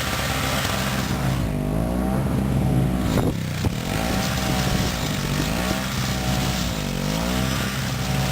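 Two-stroke snowblower engine running under load, its pitch dipping and recovering several times as it bogs in heavy wet snow. A sharp knock about three seconds in.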